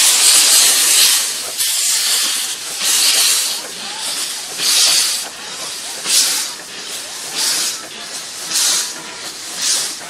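Narrow-gauge steam locomotive pulling away: a sudden loud hiss of steam, then slow exhaust chuffs about one a second, coming closer together as it gathers speed.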